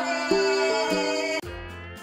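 Background music: a held chord over a stepping bass line. It drops off abruptly about one and a half seconds in, giving way to quieter music.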